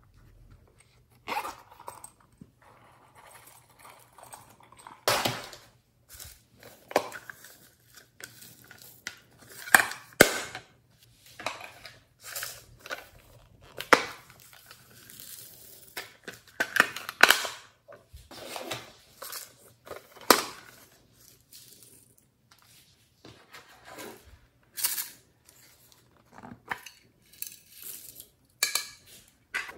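Hard plastic cases handled and opened by hand: irregular clicks, snaps and taps of plastic, with short rustling pours of glitter and sequins into a glass bowl.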